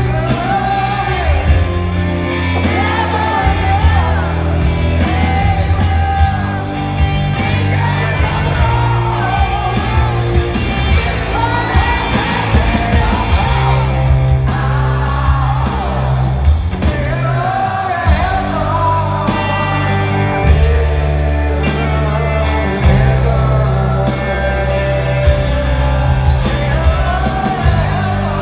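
Rock band playing live in an arena: a lead singer's voice rising and falling over electric guitars, bass and drums, in a slow rock ballad. Heard from the audience, with the hall's echo.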